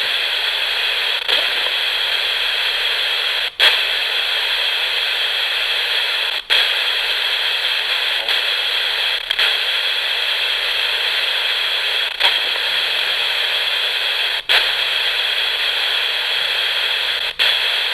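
Steady radio static (white noise) from an FM radio with no antenna, scanning back and forth between two stations. The hiss drops out sharply for a moment every few seconds, about four times.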